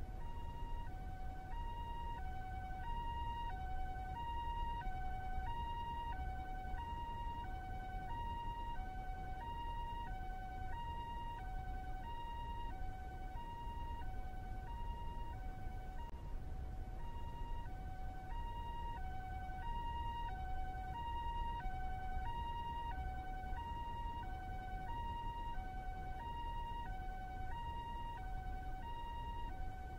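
Japanese two-tone ambulance siren sounding its hi-lo "pee-poh" call: a high and a slightly lower tone alternate evenly, each held a little over half a second, over a low steady rumble.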